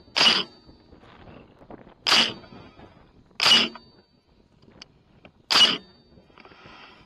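Four rifle shots from a .300 AAC Blackout, fired one after another at irregular gaps of one to two seconds. Each is a sharp crack with a short ring, picked up by the thermal riflescope's built-in microphone.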